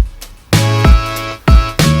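Electronic-style music with heavy kick-drum hits and deep bass notes under pitched chords. The track thins out briefly near the start and comes back in about half a second later.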